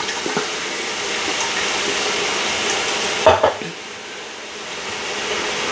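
Tomato sauce sizzling as it is poured from a can into the hot stainless steel inner pot of an Instant Pot just switched off from sauté. A single knock comes a little past three seconds in, and the sizzle is softer for a moment after it.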